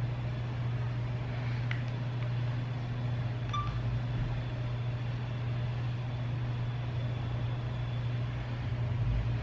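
Steady low hum of room background noise, with one or two faint clicks.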